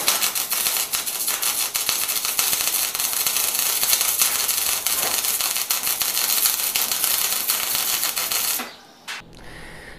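Electric arc welding on a steel tube frame: the arc's steady, dense crackle and sputter, cutting off abruptly about nine seconds in.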